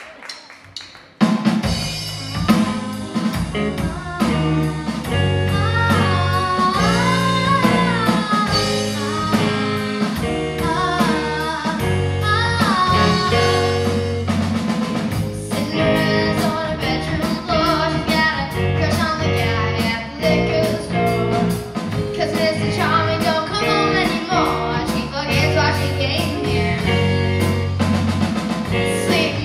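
A live rock band of drum kit, electric guitars, bass guitar and keyboard starts playing suddenly about a second in, with a girl singing the lead vocal.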